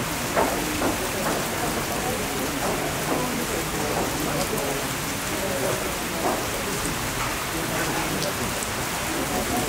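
Steady rain falling outdoors, an even hiss, with faint indistinct voices under it.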